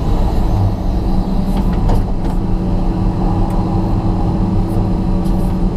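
John Deere 200LC excavator's diesel engine and hydraulics running steadily under load, heard from inside the cab, with a few light clicks.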